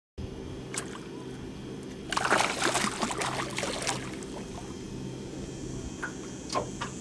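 Water splashing at the surface for about two seconds, starting about two seconds in, over a steady low motor hum; a few short sharp clicks come before and after.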